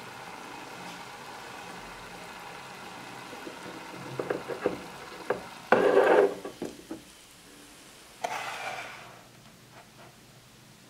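Braised chicken feet simmering and sizzling in sauce in a miniature metal wok. About four seconds in come several sharp clicks, then a loud scrape about six seconds in and a shorter one a little after eight seconds, as the feet are handled and lifted out of the pan.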